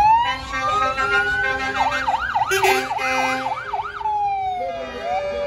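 Fire engine siren sounding. It winds up in a long rising wail, switches about two seconds in to a fast up-and-down yelp of roughly three or four swoops a second, then drops back to a falling tone about four seconds in.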